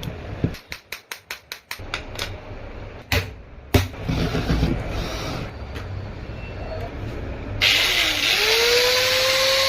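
A quick run of sharp clicks and two knocks as an angle grinder is handled. Then the grinder is switched on about three-quarters of the way through: its motor whines up in pitch and settles into a steady high-speed run.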